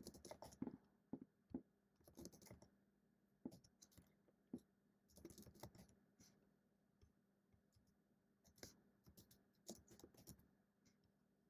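Faint computer keyboard typing: scattered keystrokes in short runs, with a pause of about two seconds past the middle.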